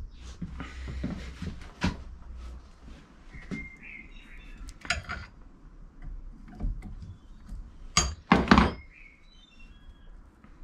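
Ring spanner worked on a motorcycle's anti-siphon oil valve body clamped in a steel bench vise: scattered metallic clicks and knocks, the two loudest close together near the end. Birds chirp in the background.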